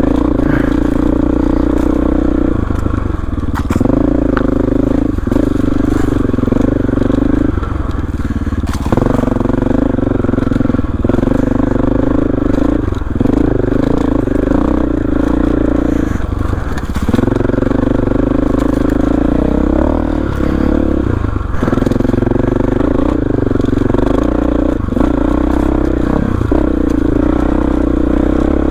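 Dirt bike engine running under load while riding a rough trail, its note dipping and picking up again several times with throttle and gear changes. Scrapes, knocks and crunching from brush and rocks under the wheels come through over the engine.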